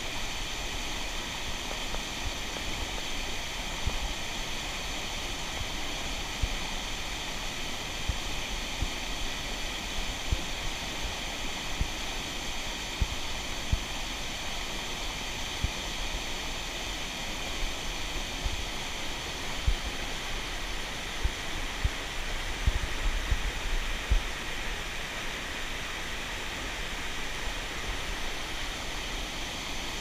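Mountain stream water rushing steadily, with scattered low thumps throughout.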